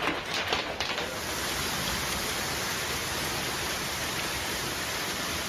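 Hailstorm downpour: a few sharp clattering hits of hailstones in the first second, then a steady, dense hiss of heavy hail and rain falling.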